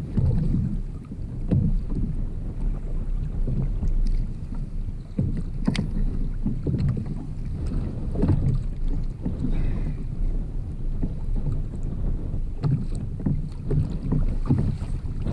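Wind rumbling on the microphone over water sounds around a kayak on the sea, with scattered small knocks and one sharp knock about six seconds in.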